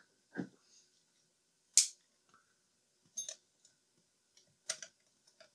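A few sharp metal clicks and taps, about a second apart, the loudest about two seconds in: a small hand tool and nut knocking against a metal radio chassis as a nut is worked onto an awkwardly placed screw.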